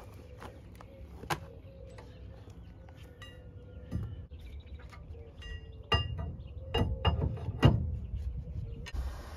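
Steel spring bars of a weight-distribution trailer hitch clinking and clanking against the hitch head as they are fitted. Scattered sharp metal knocks, a few of them ringing briefly, come closer together in the second half, with the loudest near the end.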